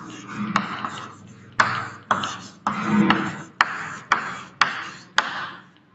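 Chalk writing on a chalkboard: a sharp tap at the start of each stroke, then a scratchy scrape that fades, about two strokes a second.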